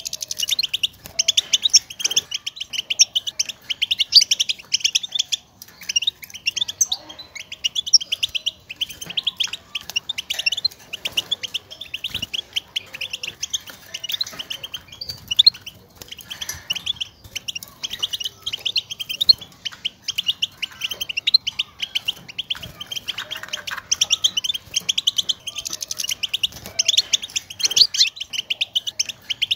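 European goldfinch contact calls: rapid runs of high twittering chirps, one after another with only short breaks. These are the calls goldfinches use to call to each other and signal their presence, which stir a caged male into song.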